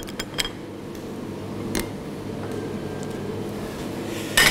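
A metal palette knife and steel cake ring clicking against ceramic plates as a baked cake in its ring is lifted from one plate onto another, with a short sharp clink near the end. A steady hum runs underneath.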